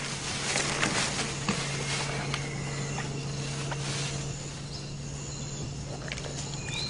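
Tropical forest ambience: insects calling, with scattered sharp clicks and snaps and a steady low hum underneath.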